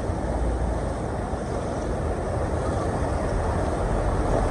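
Steady rumble of slow traffic driving through floodwater on a flooded road, growing slightly louder toward the end.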